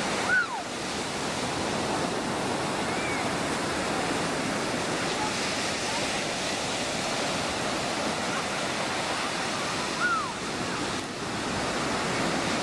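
Ocean surf breaking and washing up a sandy beach, a steady wash throughout. Two brief high cries falling in pitch cut through it, about half a second in and again about ten seconds in.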